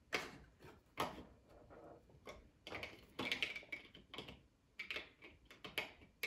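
Lego plastic pieces being handled: irregular small clicks and short rattles, with a busier clatter about three seconds in.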